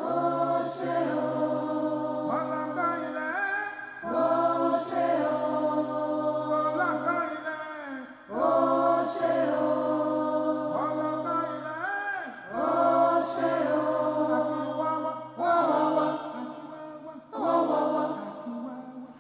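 Music: a vocal chant sung by several voices in harmony, in phrases that start about every four seconds, with pitches that slide up into each note, over a held low note.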